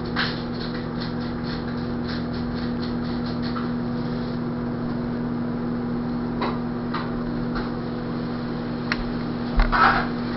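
A steady low hum underneath light taps and scrapes of a paintbrush working on a plastic mask, with a louder clatter near the end as the mask is handled and set down on the table.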